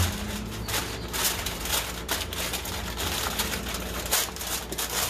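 Heavy-duty aluminum foil crinkling and crackling in irregular small ticks as it is folded and pressed tightly around a rack of ribs. A short low hum sounds at the very start.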